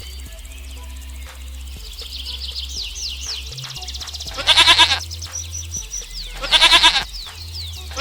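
A goat bleating twice, two loud quavering calls about two seconds apart with another starting at the very end, over birds chirping.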